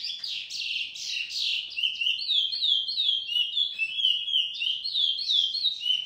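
Caged picolet singing a fast, unbroken song of short, high, downward-slurred notes, several a second, busiest in the first second or so.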